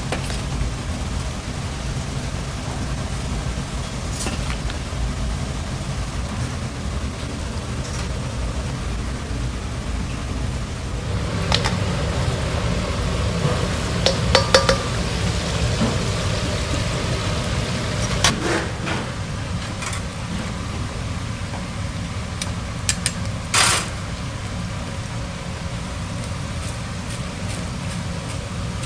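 Dishes, cutlery and glassware clinking and clattering over a steady low rumble of kitchen and dining-room noise, with a few brief sharp clatters, the loudest about two-thirds of the way through.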